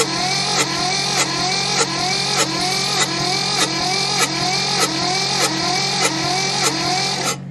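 Electric starter cranking the two-cylinder diesel of a Mitsubishi MT372 tractor, turning it over in an even, slow beat of about one and a half compression strokes a second, with no firing even with ether sprayed into the intake. The owner suspects a stuck exhaust valve and too little compression. The cranking stops suddenly near the end.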